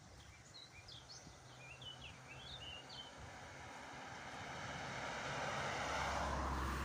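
Small birds chirping in short quick notes for the first few seconds, then a passing vehicle growing steadily louder, loudest near the end.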